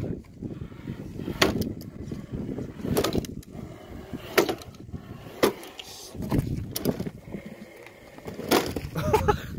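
Radio-controlled scale crawler trucks working over rough ground: a low, uneven rumble broken by scattered sharp knocks and clatters, roughly one a second.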